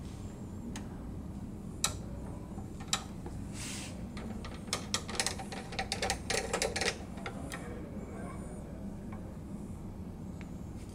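Small metallic clicks and taps of a hex T-handle wrench and screwdriver working screws out of a printer's capping-station bracket: single clicks about two and three seconds in, then a quick run of clicks from about five to seven seconds in, over a steady low hum.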